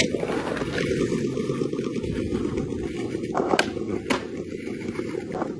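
Skateboard wheels rolling over paving stones with a steady rumble, then a few sharp clacks of the board being popped and landed on a flip trick a little past halfway.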